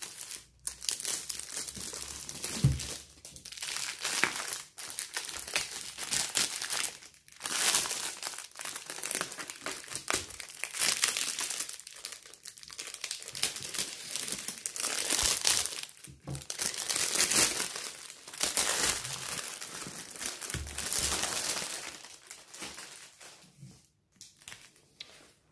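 Clear plastic film wrap being pulled and peeled off a cosmetic vanity case by hand, crinkling and crackling in a run of bursts with a few short pauses.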